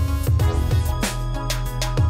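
Instrumental background music with a steady drum beat, bass and chords.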